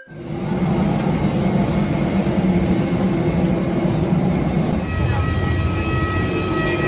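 A vehicle's engine running steadily, a loud low rumble with a faint steady high tone coming in about five seconds in.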